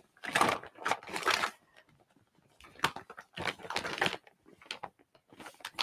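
Rustling and light clattering of makeup items, a powder compact and brushes, being handled on a desk. It comes in several short irregular bursts with sharp clicks, with a brief pause about two seconds in.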